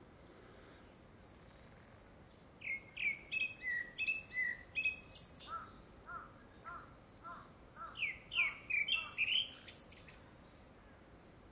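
Male gray-backed thrush singing. It gives one phrase of loud, clear, down-slurred whistles, a run of about half a dozen lower repeated notes, then more high whistles, starting a few seconds in and ending near the end. The uploader takes it for courtship song ahead of a second brood.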